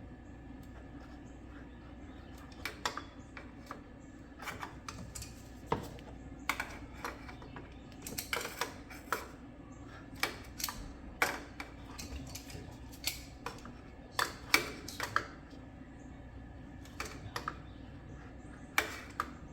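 Irregular sharp metallic clicks and clinks of hand tools and parts being handled, over a faint steady hum.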